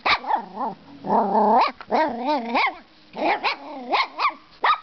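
Brussels Griffon puppy barking at the camera: short, sharp barks mixed with longer calls that waver up and down in pitch, about a second and two seconds in.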